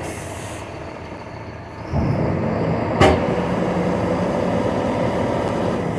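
Diesel engine of a loaded BharatBenz tipper truck running as it moves on a dirt track, revving up about two seconds in and then holding a steady drone. A sharp knock about a second after the rev-up, and a short hiss at the start.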